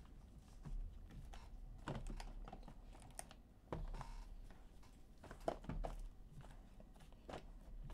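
Shrink-wrapped Tier One baseball card boxes being handled and restacked: scattered light taps and clicks as the boxes knock against each other and the table, the sharpest a little past the middle.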